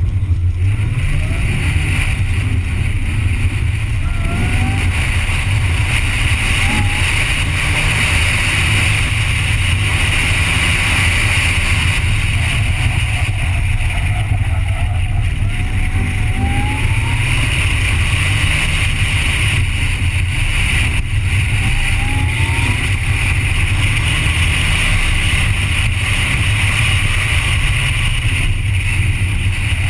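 Onboard sound of a car engine on an autocross run: a steady low rumble, with a rising engine note every few seconds as the car accelerates between corners.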